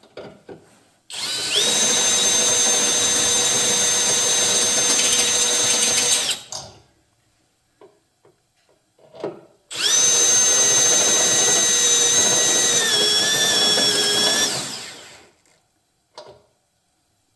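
Cordless Milwaukee FUEL drill driving a step bit through soft sheet-metal, in two runs of about five seconds each with a short pause between. The motor whines steadily at high speed, and its pitch sags and wavers near the end of the second run as the bit bites.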